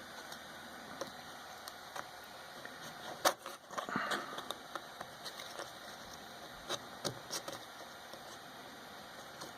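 Small scattered clicks and scrapes of a blade trimming excess plastic off a freshly 3D-printed nut, with one sharper click a little over three seconds in followed by a brief scrape.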